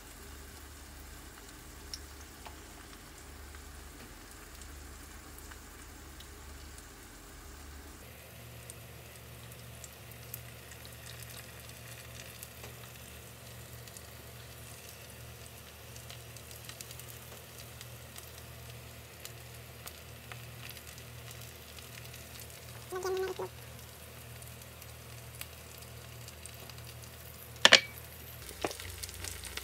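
Green onions, seafood and batter for a Korean seafood pancake sizzling steadily in a frying pan. A single sharp knock near the end is the loudest sound.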